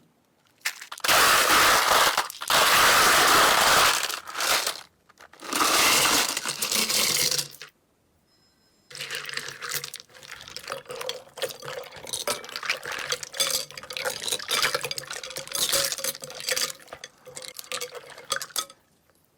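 Slime being handled and squeezed: two loud, noisy stretches of squishing in the first half, then after a short pause a long run of small sticky clicks and pops.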